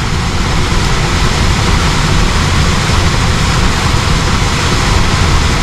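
Goodman air handler's blower running steadily with its access door off, a loud even rush of air through the cabinet over the energized electric heat strips.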